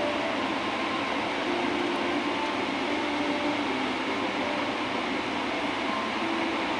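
Steady airliner cabin noise during the climb just after takeoff: jet engines and rushing air heard from a passenger seat.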